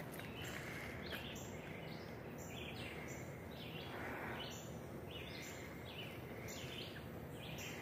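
A songbird calling over and over, a string of high notes coming about once or twice a second, over a faint steady forest background.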